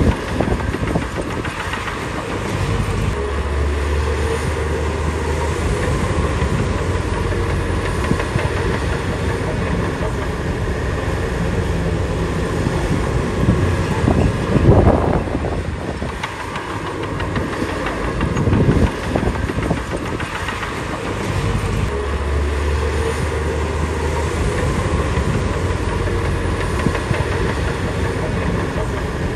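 Shantui DH17B2 crawler bulldozer working: its diesel engine running steadily with the steel tracks clanking, swelling louder twice about halfway through.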